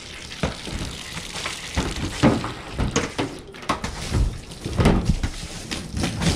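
Water from a garden hose spraying into a metal roof gutter, with irregular knocks and bumps throughout.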